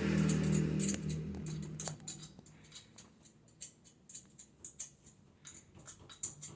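Light metallic clicks and taps of hand tools and screws, scattered and irregular, as the motorcycle's valve cover is screwed back on. A low rumble underneath fades out about two seconds in.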